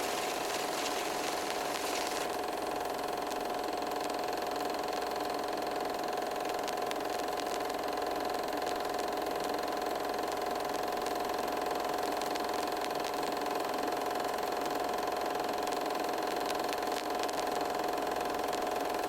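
Steady mechanical hum, like an engine running at idle: a constant mid-pitched tone over a noisy drone, starting abruptly and unchanging throughout.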